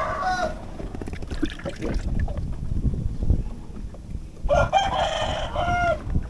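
Rooster crowing twice: one crow ends about half a second in, and a second long crow comes near the end. Light knocks and rustling sit underneath.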